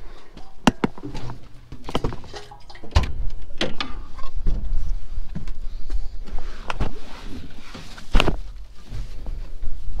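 A series of sharp metal clicks and clunks: the cab door and panel latches of a parked Caterpillar D11 bulldozer being opened and handled, with its engine off. Wind buffets the microphone from about three seconds in.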